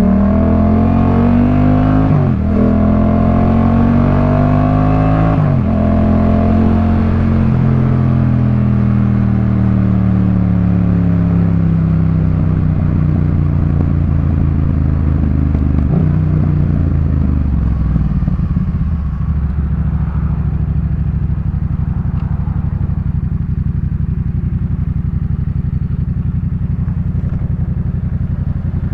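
Yamaha MT-07 parallel-twin through a Jeskap K4 full exhaust, pulling through the gears with two quick upshifts in the first six seconds. The revs then fall away slowly as the bike slows, and it settles to a steady idle over the last ten seconds.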